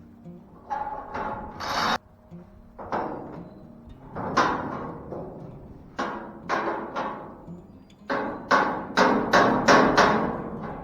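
Repeated metal-on-metal knocks with a short ring, quickening to about three a second near the end, as a 3/4-inch steel round bar is worked into a steel pipe to test the fit. The fit is tight: the bar will need shaving down to slide in.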